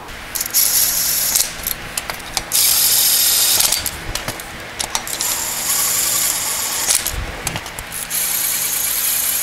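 Cordless impact wrench running in four bursts of about a second each, the third one longer, spinning down the nuts that hold a wheel spacer to a Jeep Wrangler's rear hub. Light metal clinks fall between the bursts.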